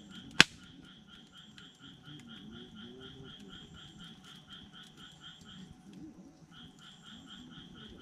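Wood campfire crackling with small scattered pops and one sharp, loud crack about half a second in. Behind it a steady pulsing animal call, about five pulses a second, keeps going and breaks off briefly near the end.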